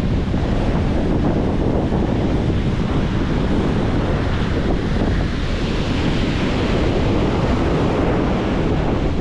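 Rough Atlantic surf breaking and washing up the beach under strong onshore wind, the wind buffeting the microphone in a steady low rumble. The wind and waves are whipped up by a hurricane passing offshore.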